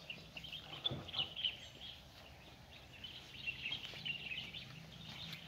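Small birds chirping and twittering in the trees, many short overlapping calls, over a faint steady background hum. A brief low knock about a second in.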